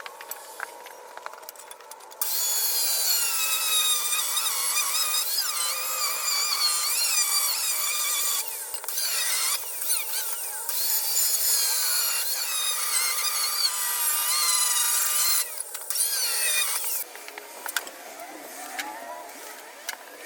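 Power tool running in several long bursts with a high-pitched whine whose pitch wavers as it works under load, with short pauses between bursts.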